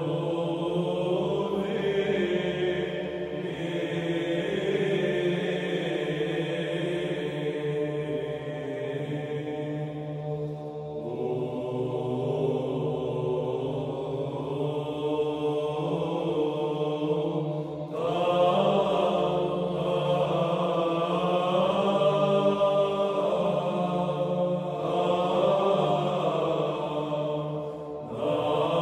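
Chanting by a group of low voices, with a steady low note held under slowly moving sung phrases. Fresh phrases begin about ten seconds in and again near eighteen seconds, where the singing grows louder, with a brief pause just before the end.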